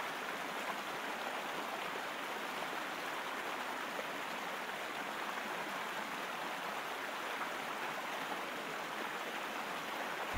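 Steady rushing of flowing river water, an even hiss with no breaks or changes.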